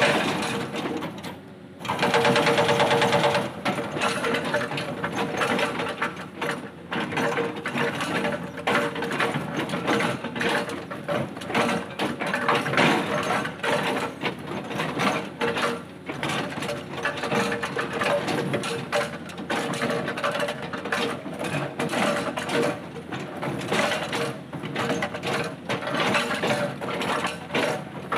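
Hydraulic breaker hammer on a Cat 320D excavator pounding boulders: a rapid, steady hammering that breaks off briefly about a second in, then runs on.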